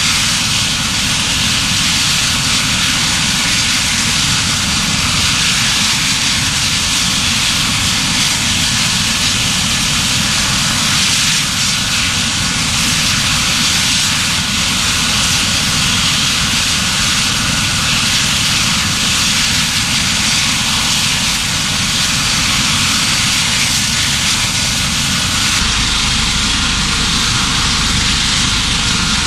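Medical helicopter's turbine engine and rotor running loudly and steadily.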